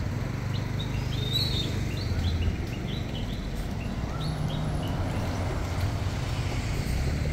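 Bird chirping: a quick run of short, high chirps over the first four seconds or so, above a steady low rumble.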